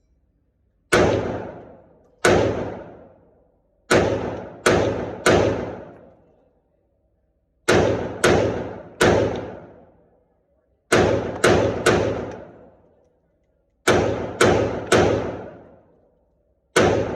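Semi-automatic firearm shots fired in quick strings: two single shots, then four strings of three shots about half a second apart, and one more shot near the end. Each shot is sharp and trails off over about a second.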